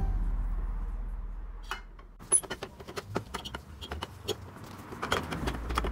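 Small clicks and light metallic clinks from hands working the metal drum shaft at the end of a Ricoh MP C3501/C4501 photocopier drum unit, loosening it for removal. A music tail dies away over the first two seconds.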